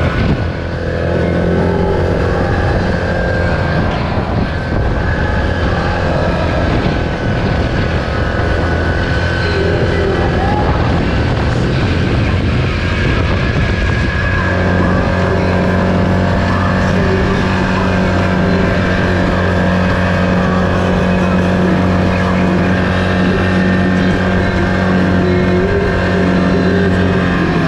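Single-cylinder four-stroke ATV engine running at a steady cruising speed, its pitch holding level with a small change in tone about halfway through.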